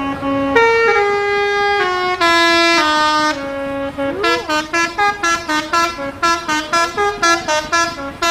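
Indonesian 'telolet' bus horn, a multi-tone musical air horn, playing a tune. Long held notes step in pitch, then about four seconds in it breaks into quick short toots, about four a second.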